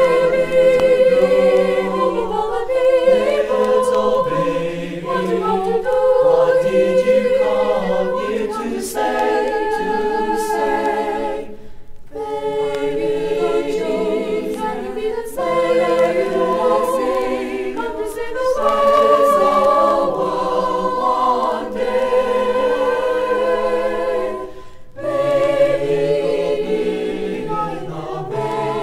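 A mixed-voice high school madrigal choir singing a Christmas song in parts, unaccompanied, with short breaks between phrases about 12 and 25 seconds in.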